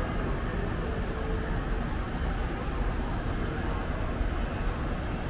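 Steady hum of city road traffic: cars and trucks running on the roads below, heard at a distance.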